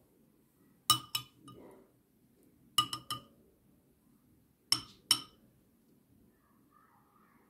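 Metal spoon clinking against a small ceramic soup bowl while scooping soup. The clinks come in three quick groups of two or three, about two seconds apart.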